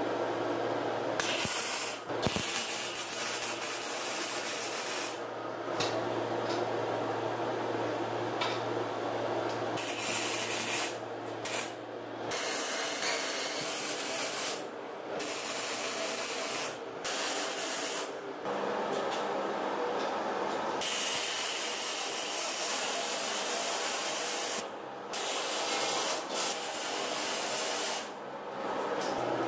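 Electric arc welding on the steel tube frame of a homemade trike: a steady crackling hiss laid down as a series of short welds, with brief pauses between them.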